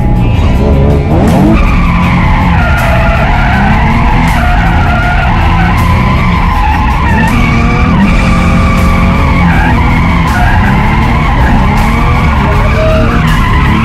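Nissan 350Z drift car's engine revving hard, its pitch rising and falling again and again, with the tyres squealing as the car slides sideways. The exhaust is opened up with headers and test pipes.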